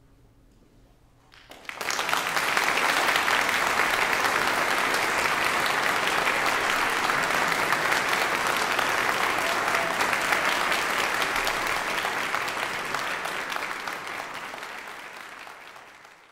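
Audience applause, starting suddenly about a second and a half in and holding steady, then fading out near the end.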